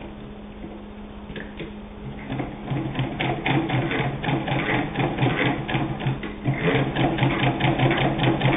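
Singer 66 hand-crank sewing machine stitching through eight layers of denim: a steady rhythmic clatter of stitches that starts about two seconds in, breaks off briefly a little past halfway, and picks up again.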